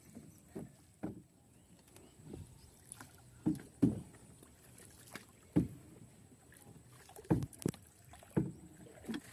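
A dozen or so dull knocks and thuds at irregular intervals, roughly one a second, the loudest a little over a third of the way in and again past the middle.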